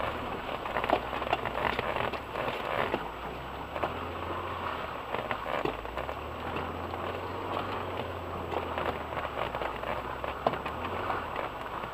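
Inside an off-road vehicle crawling along a muddy rutted track: a low, steady engine hum under a constant wet crackling patter of tyres churning through mud and mud spattering the body.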